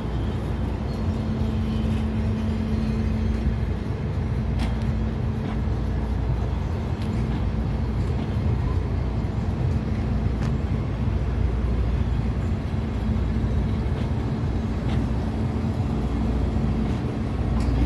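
DR1A diesel multiple unit rolling slowly past: a steady low rumble from its diesel engine and wheels, with a few faint clicks from the wheels over rail joints.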